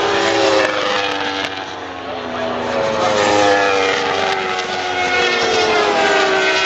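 Racing superbike engines at high revs passing along the track, one after another. Each engine note falls in pitch as the bike goes by, and the sound swells about three times.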